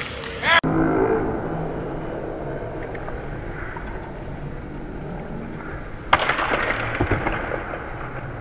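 Dull, muffled indoor lacrosse arena noise under a replay: a steady murmur of the hall, with a sharp knock about six seconds in and busier noise after it.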